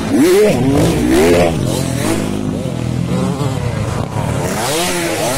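Motocross dirt bike engines revving hard and easing off as the bikes climb and clear a dirt jump close by, the pitch rising and falling in quick surges; the loudest surge is in the first second or so, with another burst of revving near the end.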